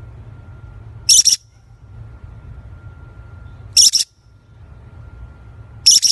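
A small featherless parrot giving three short, shrill screeches a couple of seconds apart.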